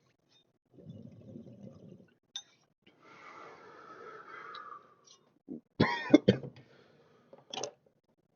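A person coughing hard after a harsh cannabis hit: a long breathy exhale, then sharp loud coughs about six seconds in, another smaller one, and a loud cough at the very end.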